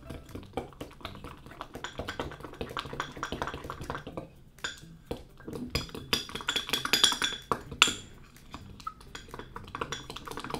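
A metal fork stirring thick cake batter in a glass mug: rapid, uneven scraping and clinking against the glass, with a few louder knocks about seven to eight seconds in.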